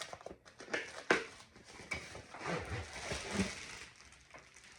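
Packaging being handled and searched: irregular rustling and crinkling with a few short knocks.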